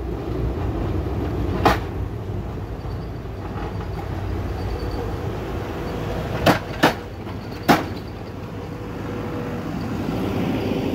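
Engine of a small tracked sidewalk snow plow running with a steady low rumble as it passes close by, with a faint steady whine. There are sharp knocks about two seconds in and three more between six and eight seconds in. A plow truck's engine grows louder near the end.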